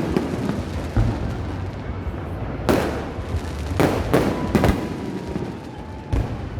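Aerial fireworks bursting overhead: a run of about six sharp bangs, three of them in quick succession in the middle, each trailing off into a rumbling echo.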